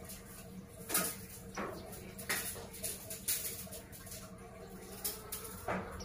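About six short, irregular taps and clicks as small white-eyes hop about a wire birdcage, landing on its perches and bars.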